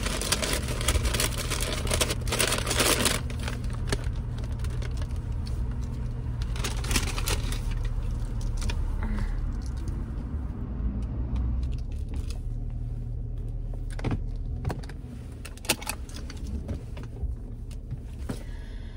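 Paper fast-food bag rustling as it is handled, then a car running, heard from inside the cabin, with scattered clicks and knocks. The low hum drops about fifteen seconds in.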